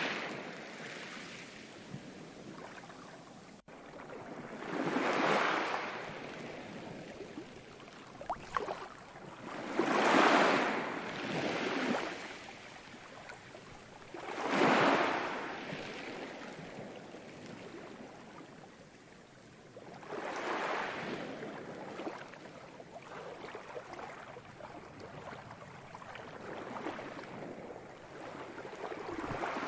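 Ocean waves washing in and drawing back, a rushing surge that swells and fades every few seconds.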